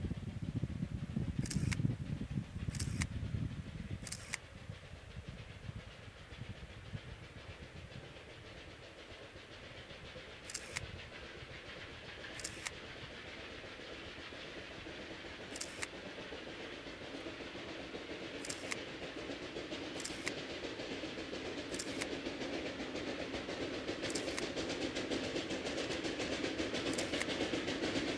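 Narrow-gauge steam locomotive working slowly uphill toward the listener, its running sound growing steadily louder. Sharp short sounds come every one to three seconds. There is a low rumble in the first few seconds.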